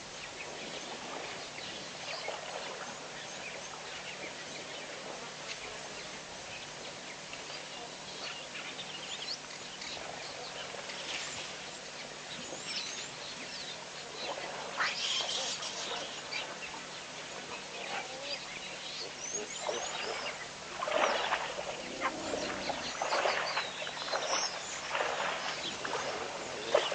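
Wild animals calling: short, sharp calls, scattered at first and coming thicker and louder from about two-thirds of the way in.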